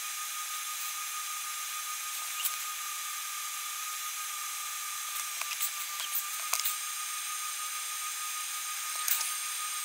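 Soldering header pins on perfboard: a few faint ticks and crackles from the iron and solder work over a steady hiss with a thin high whine.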